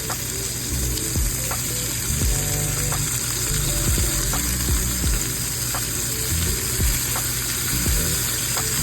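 Food sizzling as it fries in oil in a hot pan, a steady hiss, under background music with a steady beat.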